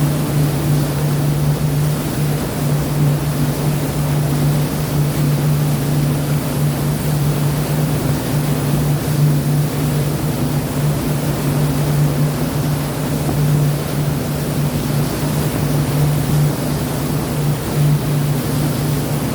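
A steady low engine drone holding one pitch, over a constant rushing of sea water and wind.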